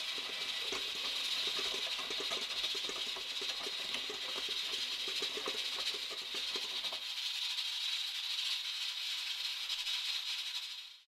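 Stand mixer running with a dough hook kneading stiff noodle dough in a metal bowl: a steady high motor hiss with a rapid rattling knock of the dough against the bowl. The knocking stops about seven seconds in while the hiss goes on, then the sound cuts off just before the end.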